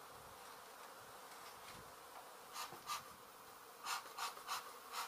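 A honey bee colony buzzing steadily, with about six short scratchy sounds in the second half as the comb is worked.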